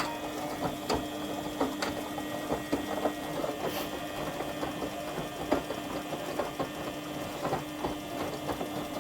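Front-loading washing machine mid-wash with its heater element on: water in the drum bubbling and crackling in irregular ticks over a steady machine hum.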